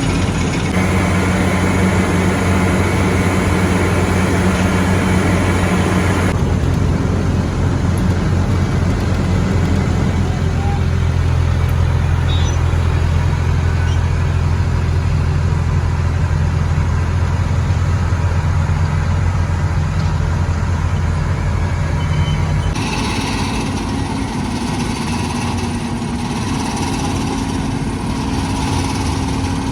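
Heavy road-construction machinery with diesel engines running steadily. The sound changes abruptly about six seconds in and again near the end, and an engine note drops in pitch about ten seconds in.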